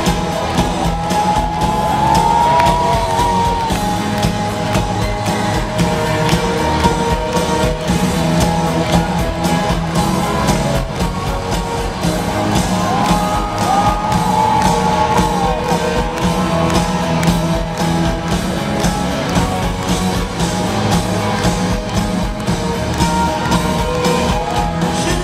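Live pop-rock band playing in a large arena, with electric guitar, drums and sustained melody lines over a steady beat, heard from the audience.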